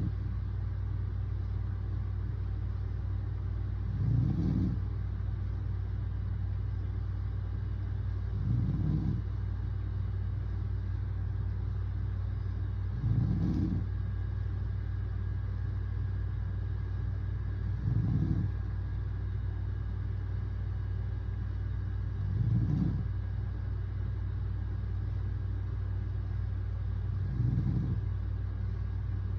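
A man snoring in his sleep, one short snore roughly every four and a half seconds, six in all, over a steady low hum.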